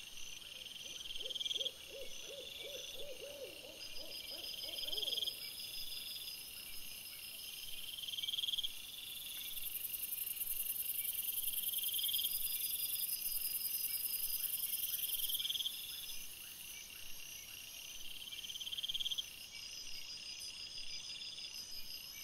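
Night chorus of calling insects: a trill swells and cuts off every two to three seconds over a steady high hiss. In the first five seconds there is also a run of rapid, low, hoot-like pulses.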